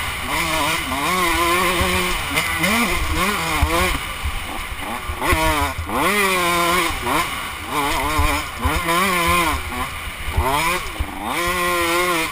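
Small two-stroke KTM dirt bike racing over a rough trail, its engine pitch rising and falling again and again as the throttle is worked, with wind noise on the helmet microphone.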